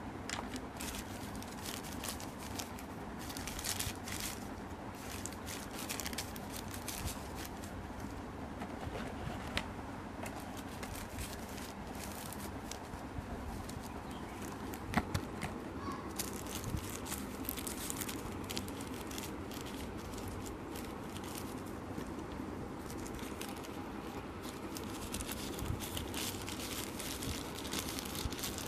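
Plastic packaging bags and paper wrapping rustling and crinkling in handling, in irregular spells with a few sharper clicks.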